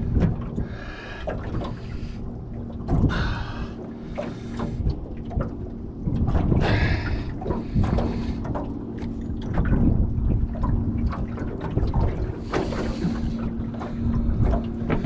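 Water sloshing and slapping against a small boat's hull in short splashes every second or two, over a low rumble and a steady low hum.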